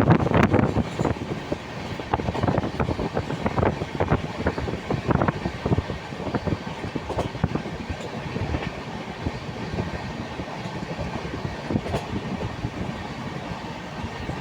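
Train wheels clattering over rail joints as a train rolls along, an irregular run of clicks and knocks over a steady rumble, loudest in the first second or two.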